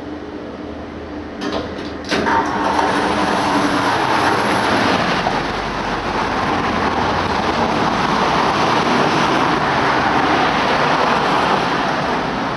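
Two clicks about one and a half and two seconds in, as a hydraulic lift's door opens at the ground floor, then a loud steady rushing noise of street traffic.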